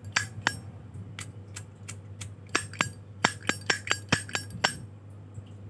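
Zippo lighter's metal lid clicking open and snapping shut again and again: sharp metallic clinks with a short ring, at an uneven pace, stopping near the end.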